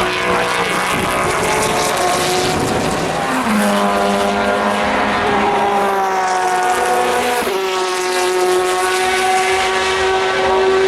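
Endurance race cars' engines running at speed on track, several engine notes overlapping. A new, lower engine note comes in about three and a half seconds in, and the pitch shifts again about seven and a half seconds in.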